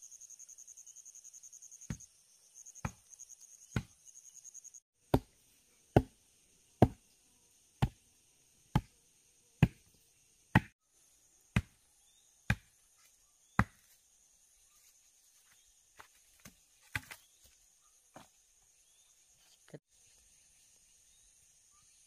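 A long wooden plank pounding bare dug earth, about one heavy thud a second, a dozen or so blows in a row while the loose soil is beaten flat; after a pause a few lighter knocks follow.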